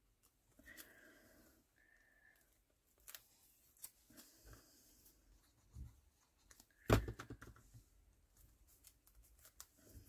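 Quiet handling of paper pieces on a craft table: faint rustling and light taps as cut-outs are placed and stuck down, with one sharper knock about seven seconds in.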